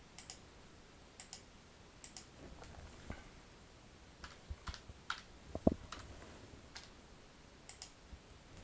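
Faint, irregular clicks of a computer mouse and keyboard being worked, about a dozen, one a little louder near the middle.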